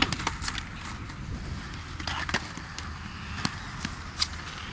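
Skateboard clattering on concrete: scattered sharp clacks of the board and wheels, over a steady low rumble of wind on the microphone.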